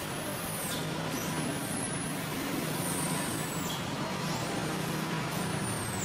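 Steady rumble of a running motor vehicle, with a few faint, thin, high sweeping whistles over it.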